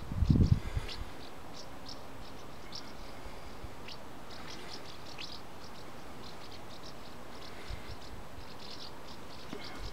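A brief low thump in the first second, then small birds chirping in short, irregular high calls over faint steady background noise.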